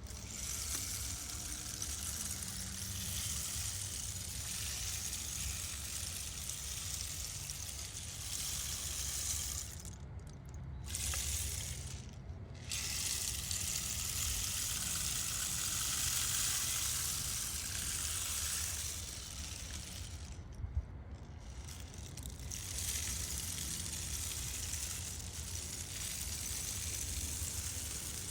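Rainstick being tipped over and over, its beads trickling down inside as a steady rain-like hiss. The hiss cuts off sharply a few times, near the middle and again about three quarters of the way through, as the stick is turned. A steady low rumble runs underneath.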